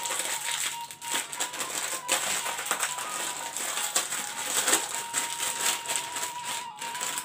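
Small plastic snack sachets crinkling and crackling as they are torn open and handled, over background music.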